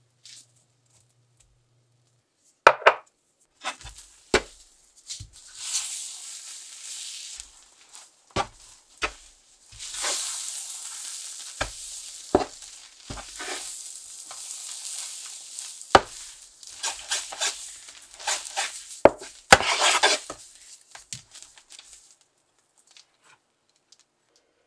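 A spatula stirring and folding melted marshmallow and milk powder in a nonstick frying pan: irregular scraping with sharp knocks of the spatula against the pan, starting a couple of seconds in and dying away near the end.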